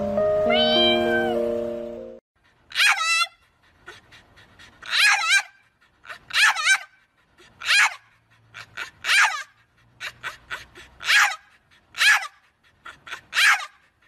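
French bulldog giving a series of about eight short yowling, howl-like calls, each wavering in pitch, the 'talking' kind of call that sounds like 'Mom!'. Before them, in the first two seconds, background music plays with one high gliding whine over it.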